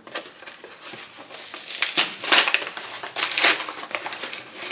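Small corrugated cardboard package being pried and peeled apart by hand, its stuck-together layers crinkling in irregular bursts. The loudest bursts come about two seconds in and again about a second later.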